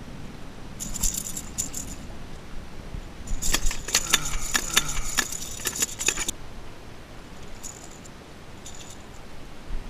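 Metallic rattling and jingling in two bursts, a short one about a second in and a longer one of about three seconds from the middle, then a few faint clicks: a Rat-L-Trap lipless crankbait and its treble hooks shaking with a freshly caught Spanish mackerel on them as it is brought aboard and unhooked.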